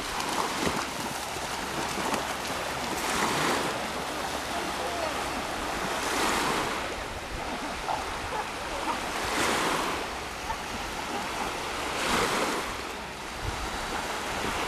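Small waves breaking and washing up a sandy shore, the surf swelling and fading about every three seconds.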